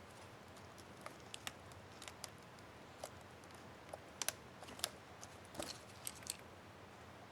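Light, irregular plastic clicks and taps from an HP Envy 15 laptop keyboard's up-arrow keycap and its clips being handled and pressed, loudest twice a little past the middle.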